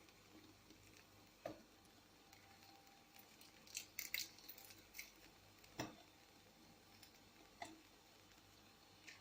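Near silence with a faint low hum, broken by scattered small clicks and taps: one about a second and a half in, a quick cluster around four seconds, and a few more spaced through the rest.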